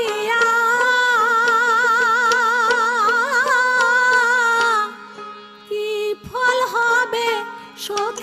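Bengali folk music: one long held melody note with a wide, fast waver over a steady low drone and a regular light beat, breaking off about five seconds in, after which short plucked-string phrases start up again.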